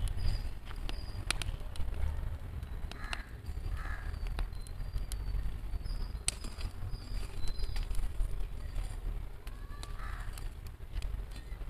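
Crows cawing a few times, short calls about four seconds in and again near the end, with faint high bird chirps, over a steady low rumble and scattered sharp clicks.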